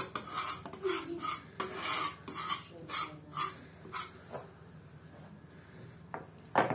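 A kitchen knife scraping and tapping against a pastry board as it cuts pieces off a lump of bread dough. There are about ten short scrapes in quick succession, then a pause, then one louder scrape near the end.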